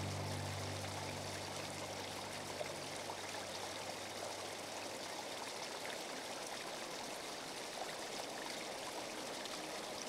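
Small waterfall trickling steadily over rock into a shallow pebbly pool. A background music track fades out in the first few seconds.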